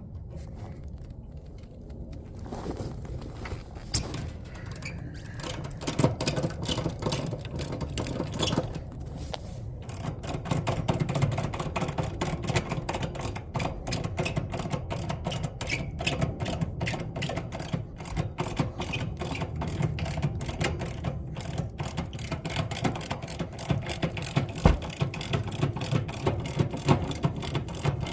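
Ratchet clicking in quick, uneven runs as it turns open the hex stem of an air conditioner's larger (suction-line) service valve, toward the backseat position.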